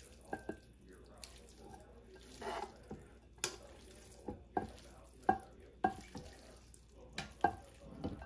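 Metal tongs clinking against a ceramic dish and a pan while sticky stir-fried glass noodles are lifted and dropped into the dish: about ten sharp clinks with short rings at uneven intervals, and a soft wet shuffle of noodles about two and a half seconds in.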